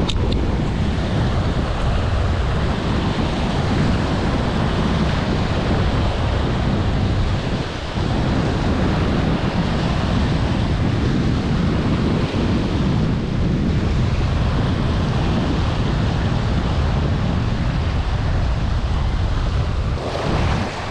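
Steady wind buffeting the microphone, with small waves washing up on a sandy beach.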